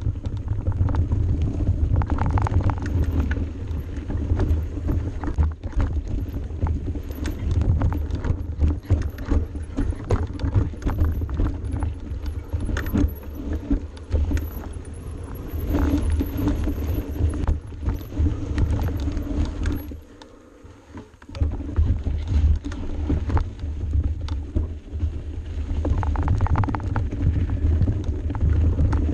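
Mountain bike riding fast down a rough dirt singletrack, heard from a camera mounted at the front wheel: a constant low rumble of wind and trail on the microphone, with rapid clicks and knocks as the bike rattles over bumps and roots. It goes briefly quieter about two-thirds of the way through, then picks up again.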